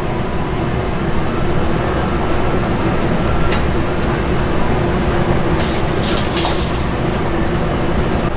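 Steady low rumble and hum of a working ramen kitchen, with a brief hiss about six seconds in.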